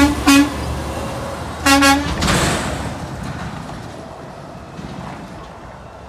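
Garbage truck horn sounding three blasts: two quick toots and then a longer one about a second and a half later. A low vehicle rumble fades away after them.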